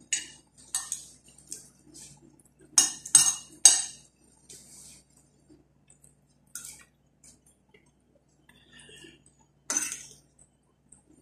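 A metal spoon clinking and scraping against plates and serving dishes as food is served, in scattered sharp clicks: loudest in a quick run of three about three seconds in, and once more near the end.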